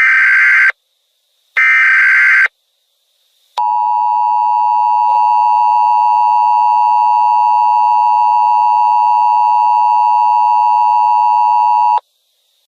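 Emergency Alert System alert opening: two short screeching SAME header data bursts, about a second each and a second apart, then the steady two-tone EAS attention signal for about eight seconds, cutting off sharply.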